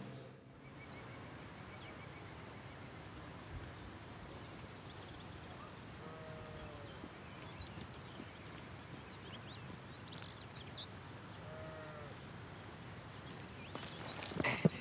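Steady, quiet background noise with faint scattered high chirps and two short animal calls, one about six seconds in and one near twelve seconds.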